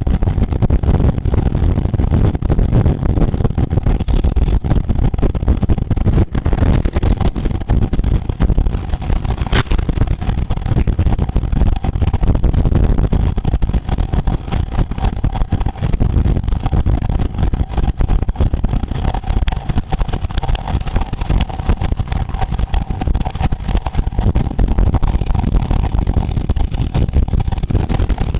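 Loud, steady low rumble of wind buffeting the microphone and road noise from a bicycle moving at race speed, with a faint steady whine coming in about halfway through.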